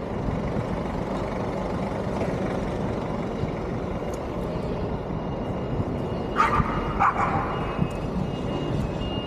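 Steady rushing noise of riding along on a bicycle, with two short, sharp calls about six and a half and seven seconds in.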